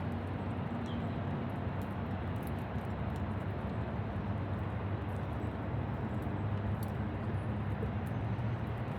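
Steady rain falling, an even hiss with scattered faint drip ticks, over a low steady hum.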